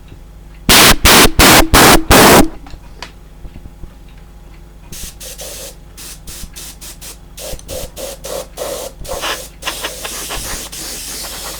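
Airbrush run off a compressor: about five short, very loud blasts of air near the start, then from about five seconds in a softer hiss of spraying in many short, uneven strokes as the trigger is worked.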